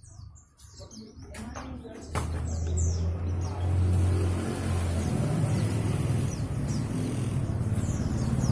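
Pleci (white-eye) songbirds chirping in short, high, falling notes. About two seconds in, a low steady engine rumble comes in and runs on, louder than the birds.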